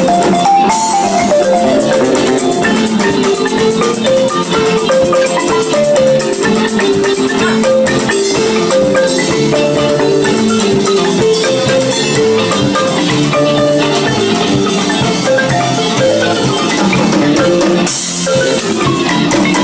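Live band music: a xylophone and a kora play quick, interlocking melodic runs over electric guitar, with a steady percussion beat.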